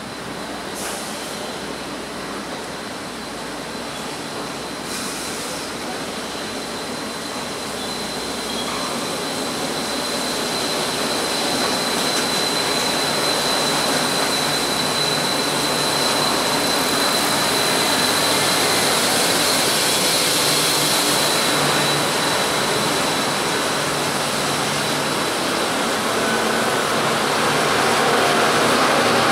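Taipei Metro Wenhu Line rubber-tyred automated train running along the elevated viaduct: a hiss and rumble of tyres and motors with a steady high whine, growing louder as the train nears.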